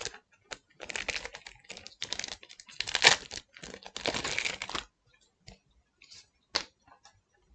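Trading cards and a booster-pack wrapper being handled: several seconds of crinkling and card rustling, then a few light clicks and taps near the end.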